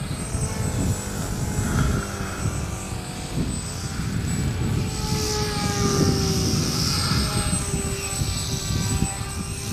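Pusher-propeller motor of an RC foam MiG-29 model jet whining in flight, its pitch rising and falling as the throttle changes through the manoeuvres, over a low rumble.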